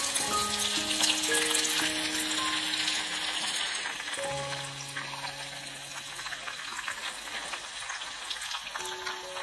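Hot oil sizzling and crackling around potato sticks deep-frying in a small pan. It is dense and loud for the first few seconds and softer after about four seconds.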